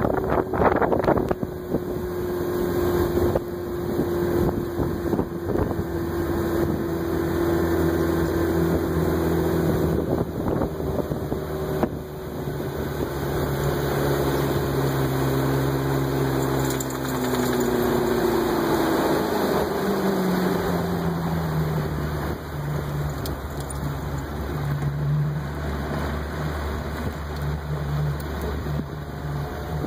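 Motorboat engine running under way, with wind buffeting the microphone and water rushing past the hull. The engine note falls about two-thirds of the way through, then holds steady at the lower pitch.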